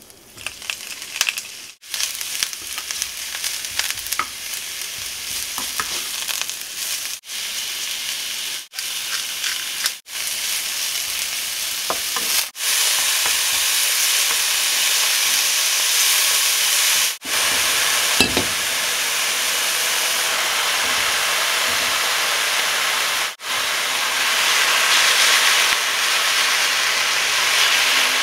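Mushrooms, and later spinach, sizzling in hot oil in a frying pan on high heat while being stirred with a wooden spatula. The sizzle builds in the first seconds, then holds loud and steady, broken several times by abrupt brief gaps.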